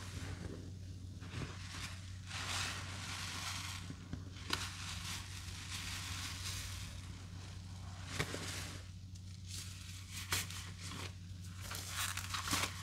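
Soapy, paste-loaded sponges being squeezed and worked during a rinse: wet crackling and crinkling of foam, with a few sharp snaps, over a steady low hum.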